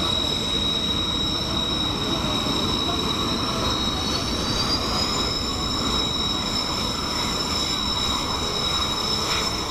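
Kawasaki T-4 jet trainers' twin turbofan engines running, a high steady whine over a rumble; about four seconds in one engine's whine rises in pitch as it spools up.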